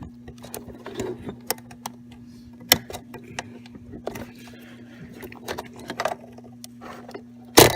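Small plastic wire connectors being worked loose and pulled off a receiver circuit board: scattered clicks and rustling handling, with a sharp click about two and a half seconds in and a louder snap near the end as a connector comes free. A steady low hum runs underneath.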